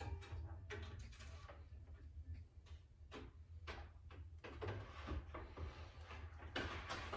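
Faint, scattered plastic knocks and scrapes as an electric radiator fan and its plastic shroud are handled and fitted into place against the radiator, over a steady low hum.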